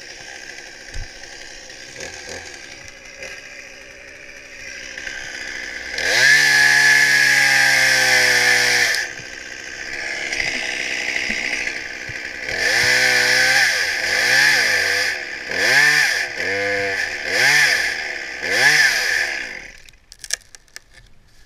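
Chainsaw idling, then held at full throttle for about three seconds as it cuts. It then revs in about six quick bursts, each rising and falling in pitch, and shuts off near the end.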